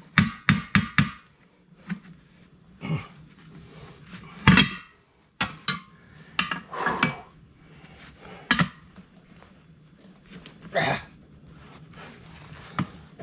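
Steel tire irons clanking against a steel tractor wheel rim and a manual tire changer as the bead of a new tractor tire is levered onto the rim: a quick run of knocks at the start, then single clanks every second or two.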